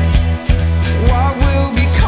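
Background music: a song with a steady drum beat, bass and a melody line.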